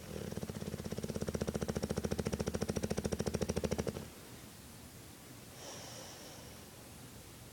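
A bulldog snoring: one long, loud, rattling snore of about four seconds, then a fainter, higher whistling breath about a second and a half later.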